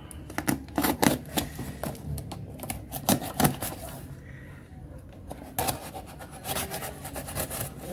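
Packaging being handled and opened by hand: irregular crinkling, scraping and clicking, with a few sharper clicks about one and three seconds in and a cluster near six seconds.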